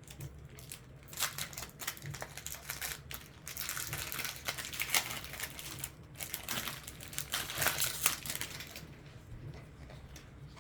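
Foil booster-pack wrapper being crinkled and opened by hand, a dense crackling that stops about nine seconds in.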